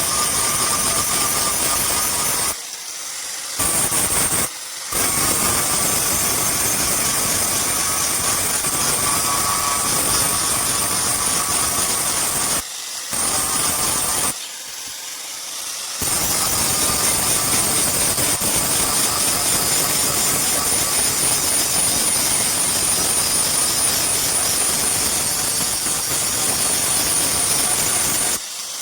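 A motor-driven workshop machine running steadily with a high whine, cutting out briefly four times.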